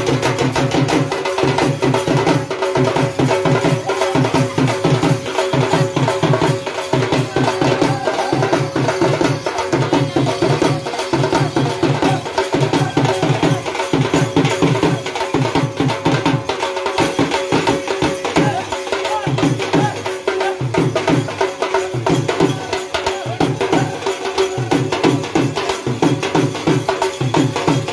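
Live folk drumming for a wedding dance: a dhol and other drums beaten in a fast, even rhythm, with a steady held note running over it.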